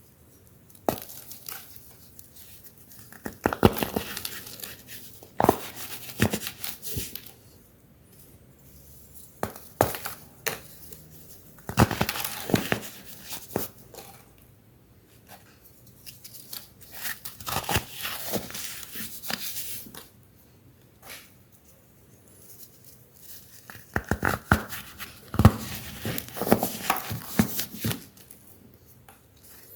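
Dried baking soda shapes being crushed and crumbled, crunching and crackling in several bursts with short pauses between them.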